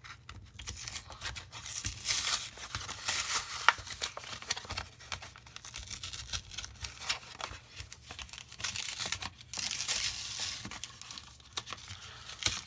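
Crinkly foil or plastic card packaging being handled and torn open by hand, in irregular stretches of crackling and tearing, with one sharp snap about four seconds in.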